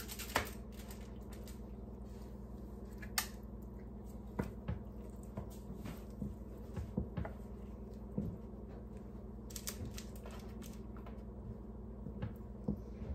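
Scattered small clicks, taps and crinkles as gloved hands arrange sticky sauced pork ribs in disposable aluminium foil trays, a few sharper taps among them, over a steady low hum.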